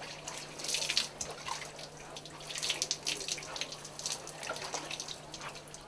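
Water scooped from a plastic barrel with a plastic dipper and poured out, splashing into a pot in several uneven pours, the loudest about a second in and around three seconds in. A faint steady low hum runs underneath.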